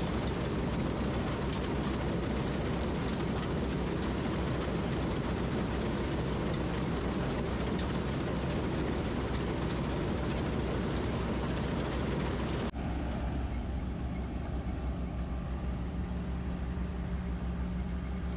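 PREET 4949 Maestro combine harvester's 102 HP engine running with a loud, dense mechanical din. About two-thirds of the way through it cuts abruptly to a quieter, steady engine hum with a clear pitch.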